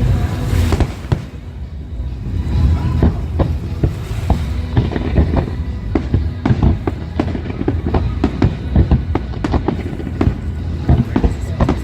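Aerial fireworks going off: a strong burst about half a second in, then from about four seconds on a dense run of rapid bangs and crackles.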